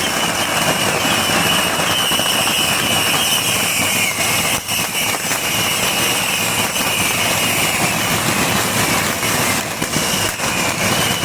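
Massed bottle rockets firing from a beehive-fireworks rocket fortress: a dense, continuous rushing roar with a high whistle that slowly drops in pitch, broken by a few sharp cracks.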